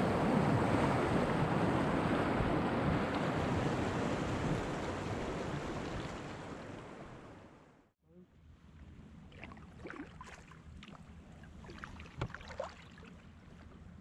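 Rushing whitewater of river rapids, a loud steady rush that fades away about eight seconds in. After a moment's silence come faint small splashes and drips from a kayak paddle on calm water.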